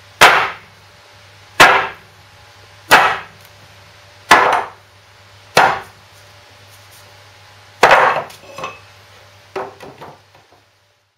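Heavy knocks as the crankshaft and bearing housing assembly of a Lister D stationary engine is bumped shaft-end down onto a wooden plank to drive the crankshaft out of the housing: six loud strikes, the first five about 1.3 s apart, then a pause before the sixth. Lighter clatters follow near the end as the freed crankshaft and housing are set down on the wood.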